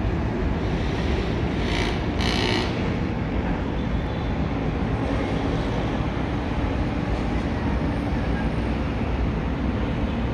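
Steady low rumble of distant city traffic heard from high above the street, with two short hissing bursts about two seconds in.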